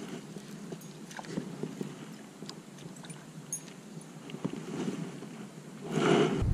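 Water lapping softly against a kayak hull, with scattered light clicks and taps. About six seconds in there is a brief louder rush of noise.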